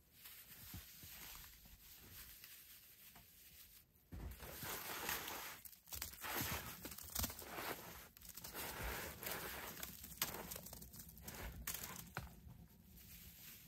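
Dry rustling and crunching, as of something being handled, torn or trodden. It is faint at first, grows louder about four seconds in, and includes one sharp click about ten seconds in.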